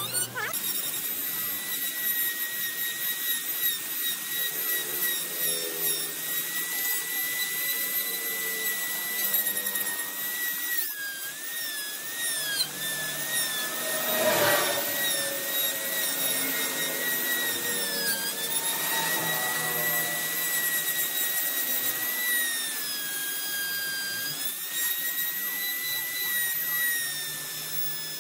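A high-speed electric power tool carving wood, running with a steady high whine that dips in pitch several times. It gets briefly louder and rougher about halfway through.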